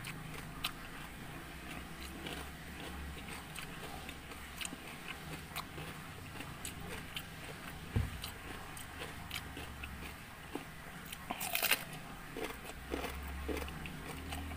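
A person chewing soft rice cake close to a clip-on microphone: many small wet mouth clicks and smacks, with a low knock about eight seconds in and a louder cluster of smacks near the end.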